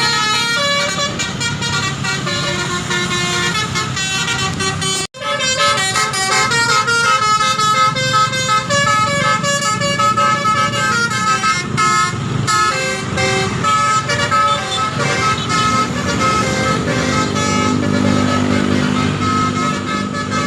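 A tour bus's basuri telolet horn playing a run of quick, stepping multi-tone melodies, breaking off for an instant about five seconds in. The bus's engine runs underneath, louder near the end.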